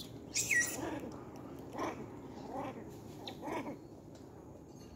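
Long-tailed macaque calling: a short shrill squeal that falls in pitch about half a second in, then three short, lower calls about a second apart.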